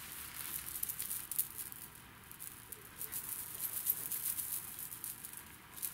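Faint, irregular clicking and rustling of a catfish attractor being handled close up: fingers on its plastic body, rubber skirt and line.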